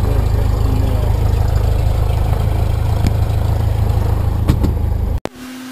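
2003 Cessna 172SP's four-cylinder Lycoming IO-360 engine and propeller idling steadily below 1,000 RPM, heard inside the cabin. A couple of faint clicks come near the end, then the engine sound cuts off abruptly about five seconds in, leaving a steady low hum.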